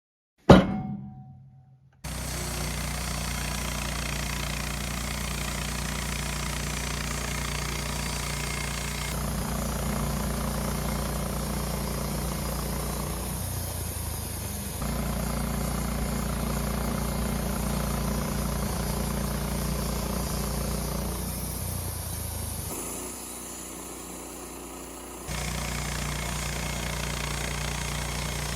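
Woodmizer LT15 bandsaw sawmill's engine running steadily, its loudness and tone shifting a few times. About half a second in there is one sharp loud hit that dies away over a second or so.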